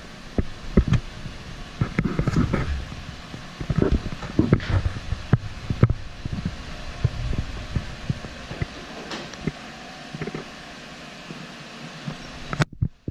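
2015 Chevrolet Suburban creeping forward at low speed with its engine idling, as a steady low hum. Irregular low thumps and knocks run over it, thick during the first half and sparser after.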